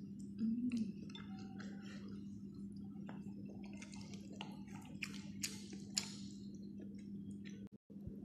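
Close-up eating sounds of a person chewing and slurping saucy noodles, with short wet clicks and taps from the chopsticks and bowl, over a steady low hum. The sound cuts out for a moment near the end.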